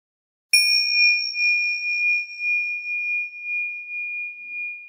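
A single bell-like chime struck once about half a second in, one clear high tone with fainter higher overtones, ringing on and slowly fading with a gentle wavering.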